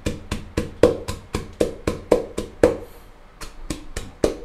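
Pestle pounding in a mortar, steady strikes about four a second with a short pause near the three-second mark, crushing galangal, lemongrass and garlic with salt into a paste.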